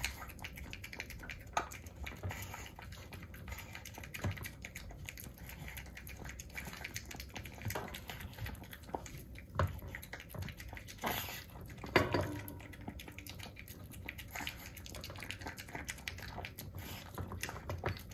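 Boston Terrier puppy eating eagerly from a food bowl: a steady run of irregular wet clicks, smacks and taps as her jaws, tongue and food knock against the bowl, a little louder around the middle.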